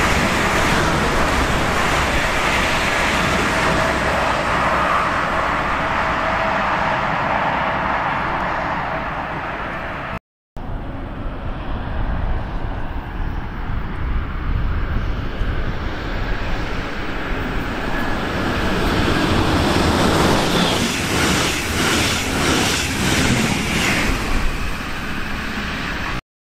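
Electric trains passing close by. First a Rhine-Ruhr-Express Siemens Desiro HC (class 462) double-deck multiple unit runs past with a steady rush. Then a DB class 146 electric locomotive and its train approach and pass, with a quick run of wheel clacks over rail joints near the end.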